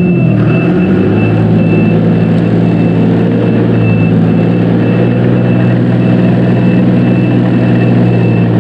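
Dongyang TX653 tractor's diesel engine running steadily as it drives in first gear after a gearbox repair, the engine note picking up about a second in. A high electronic beep sounds on and off throughout.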